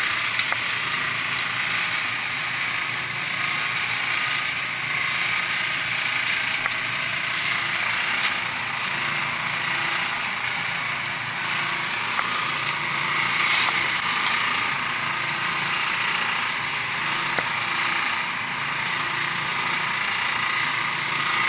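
Steady mechanical running noise: a constant rushing hiss over a faint low hum.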